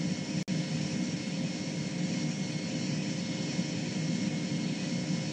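Steady radio hiss and low rumble of the Apollo 11 air-to-ground communications loop between transmissions, with a faint steady hum and a brief click about half a second in.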